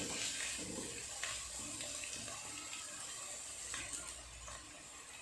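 Chopped onions and garlic sizzling in hot oil in a kadai, a faint steady sizzle with a couple of light clicks.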